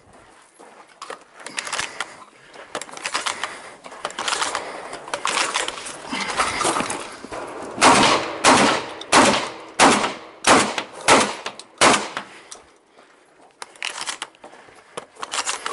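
Shotgun shots fired in quick succession during an IPSC shotgun stage. There are lighter, closely spaced reports in the first half, then a string of about seven loud shots roughly two-thirds of a second apart in the middle, and more shots near the end.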